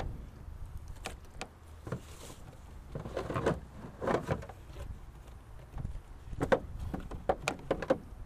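Plastic duck decoys being handled and set out from a canoe: scattered light knocks and clatters as decoys and their anchor lines bump against the hull and the gear bag, in a few quick runs.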